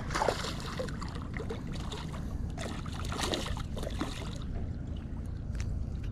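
Water noise with a steady low rumble underneath; the hiss eases off about two thirds of the way through.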